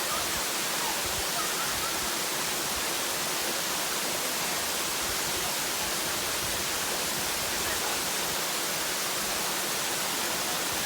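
Steady, even rush of flowing water, like a waterfall or fast stream.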